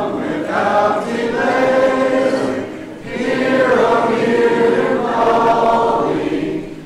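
Congregation singing a hymn together a cappella, in parts, with a short break between phrases about three seconds in.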